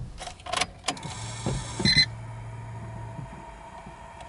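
Ignition of a Subaru Impreza WRX STi being switched on before a start: a few sharp key clicks, a short electronic beep, then a low steady hum for about two seconds that stops, the fuel pump priming.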